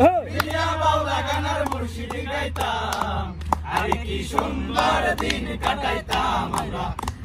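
A group of people chanting and shouting together, several voices overlapping, with scattered sharp clicks.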